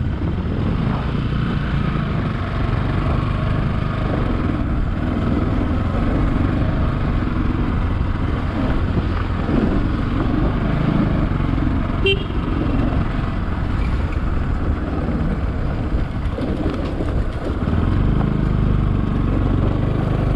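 Bajaj Pulsar motorcycle engine running steadily while riding over a broken, gravelly road. There is a short sharp click about twelve seconds in, and the engine grows louder near the end.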